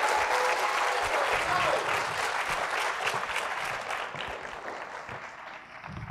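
Audience applauding after a talk, with a couple of whoops in the first second or two. The clapping dies away over the last two seconds.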